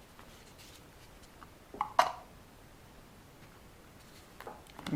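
Quiet handling noises from work on an RC car tyre. A short cluster of sharp taps or knocks about two seconds in is the loudest sound, with a few softer knocks near the end.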